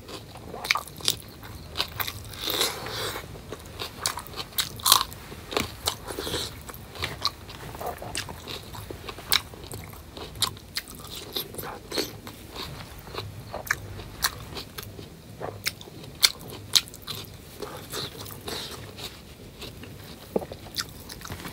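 Close-miked mouth sounds of a person eating: chewing and crunching, with many short sharp clicks. He is eating rice and pork curry by hand, with bites of raw green chilli and tomato.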